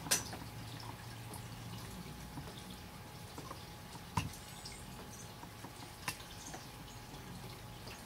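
Water dripping from trees wet from a night of rain: scattered, irregular drips and ticks over a faint low background rumble, with sharper ticks at the very start and about four seconds in.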